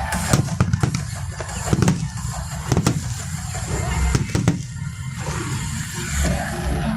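Aerial fireworks bursting in a display: a run of sharp bangs at uneven intervals over a continuous low rumble.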